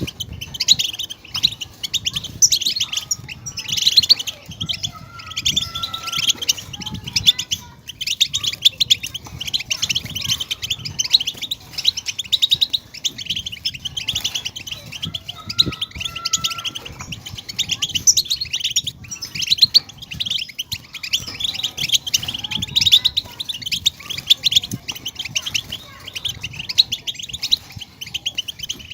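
European goldfinches singing: a dense, continuous stream of fast, high twittering chirps and trills.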